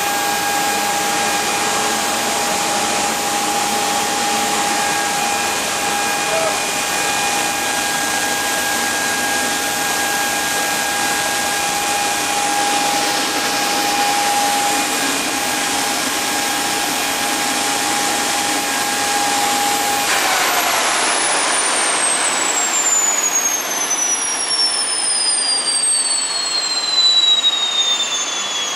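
Jet engine taken from a Vulcan bomber, running at a steady speed with a loud rush and a steady whine. About twenty seconds in it is shut down and spools down, its high whine falling steadily in pitch.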